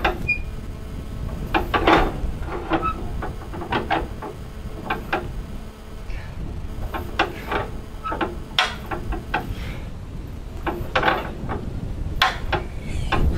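ZIL-131 truck's petrol V8 being turned over with the hand starting handle, giving irregular metallic clanks and knocks as the crank is swung. The engine does not catch.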